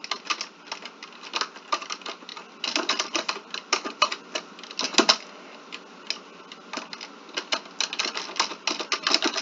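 Typing on a computer keyboard: quick, irregular key clicks in short spurts with brief pauses.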